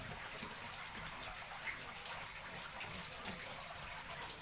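Water running steadily from a hose into a barrel, an even splashing hiss, with a few faint knocks of a knife cutting fish on a board.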